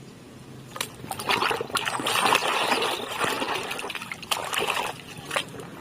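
Water splashing and sloshing as a plastic toy is swished and rubbed clean by hand, with a couple of sharp clicks along the way.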